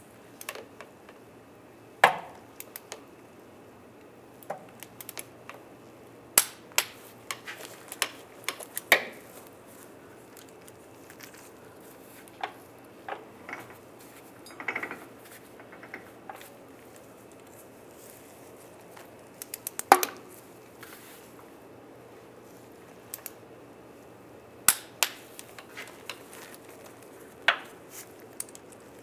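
Torque wrench on the inner CV joint bolts at the transmission flange, giving sharp metallic clicks as each bolt reaches the set torque of 29 foot-pounds. About six loud clicks come a few seconds apart, with lighter clicks and clinks of the wrench and socket between them.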